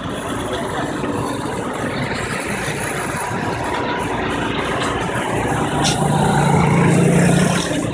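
Street traffic noise with vehicle engines running; a nearby engine hums louder near the end.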